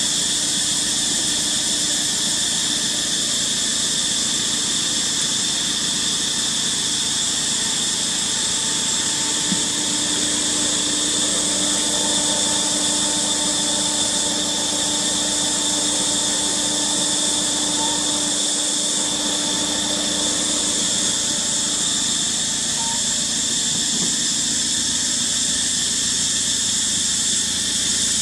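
Steady high-pitched drone of insects, unbroken throughout, with a faint low hum underneath for a while in the middle.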